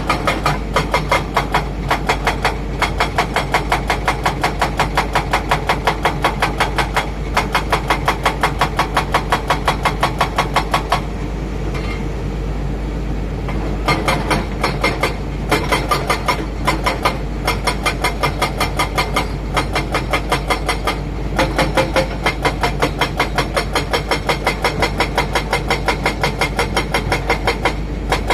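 Heavy diesel machinery running, with a fast, regular clatter of about three to four knocks a second over a steady low hum. The clatter stops for about three seconds midway.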